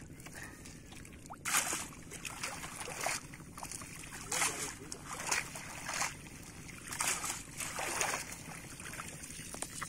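A cast net being dunked and swished in shallow pond water, splashing and sloshing in a series of separate splashes about a second apart, which rinses the mud out of the net.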